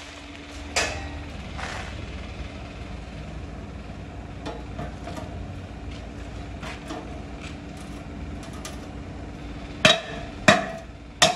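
Hammer blows on metal while an exhaust silencer is being fabricated: one sharp strike about a second in, a few light taps through the middle, then three loud strikes in quick succession near the end, over a steady low hum.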